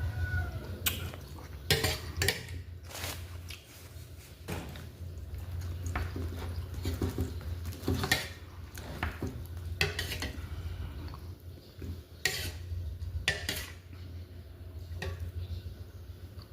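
Utensils clinking against dishes during a meal: irregular sharp clicks and taps, a few louder than the rest, over a steady low hum.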